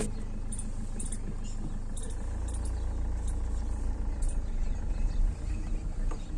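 Car engine and tyres rumbling low and steady, heard from inside the cabin as the car creeps along a dirt road, growing a little louder about two seconds in, with a few faint ticks.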